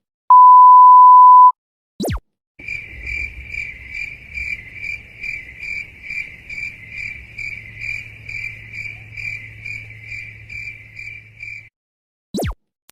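A loud steady censor bleep for about a second, then a short falling electronic sweep. Then crickets chirp steadily for about nine seconds, two or three pulses a second over a low hum: the stock 'crickets' effect for an awkward silence. Another quick falling sweep comes near the end.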